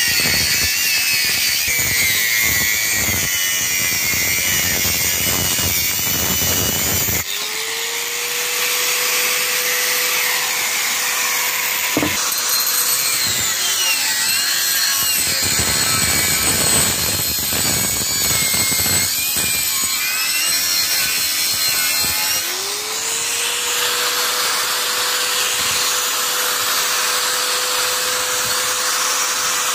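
Bosch GWS 600 angle grinder cutting through rusty steel pipe: a harsh grinding rush with the motor's whine pulled down under load. Twice, about a quarter of the way in and again about three quarters through, the motor winds back up to a steady high whine as the disc eases off the cut.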